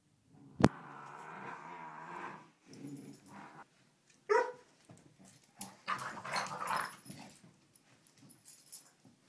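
A Dalmatian puppy and a Staffordshire bull terrier play-fighting, with low play growls and a short sharp yip a little after four seconds. A loud sharp click just under a second in is the loudest moment.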